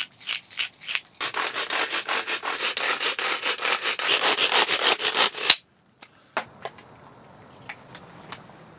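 Fast rhythmic rasping strokes of food being rubbed on a hand grater, about five strokes a second after a few slower ones. They cut off suddenly about five and a half seconds in, and a few light clicks follow.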